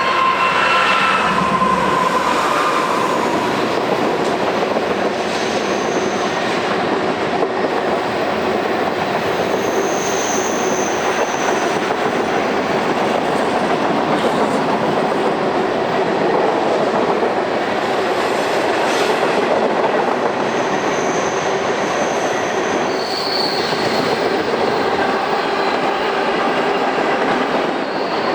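Manifest freight train rolling past in a continuous steady rumble of railcars over the rails, with brief high wheel squeals several times. A horn note fades out in the first two seconds.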